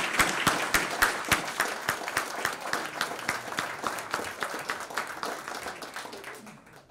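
Audience applauding, many hands clapping together, loud at first and gradually thinning and dying away toward the end.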